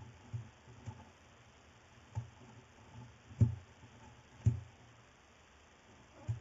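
Barn owl chicks moving about inside a nest box, giving a handful of irregular dull knocks and scrapes against the box, the loudest about three and a half and four and a half seconds in.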